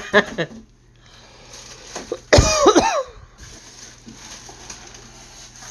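Short, harsh voice-like bursts: a few sharp ones at the start, and a louder call with swooping pitch about two and a half seconds in.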